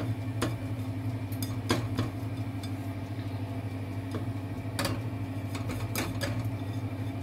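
A wooden seafood skewer swirled through batter in a glass bowl, clicking against the glass now and then, over a steady low hum.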